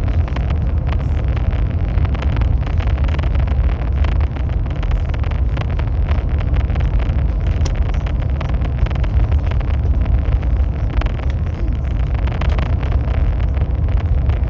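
High-speed train running at speed: a steady low rumble and rushing noise, unbroken throughout, with faint light ticks scattered through it.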